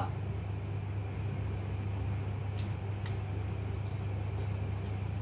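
A steady low hum of room noise. It is joined about halfway through by a few faint, short ticks and rustles as a toy fishing rod and foam fish are handled.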